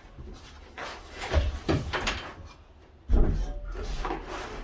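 Wooden beam pieces being handled and knocked into place against the cabin overhead during a dry fit: a run of knocks and bumps, with the loudest thump about three seconds in.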